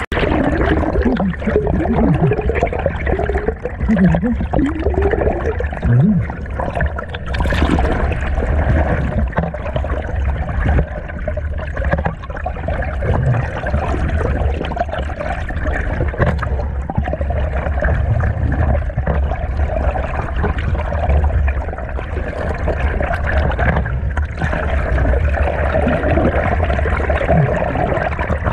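Muffled, continuous rushing and gurgling of stream water heard from under the surface, with a low rumble and short bubbly warbles.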